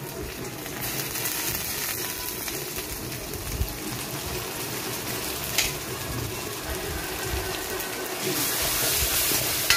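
Chopped onions, green chillies and curry leaves sizzling in oil in a steel kadai while ginger-garlic paste is stirred in with a ladle, with one sharp tap about halfway through. The sizzle grows louder near the end.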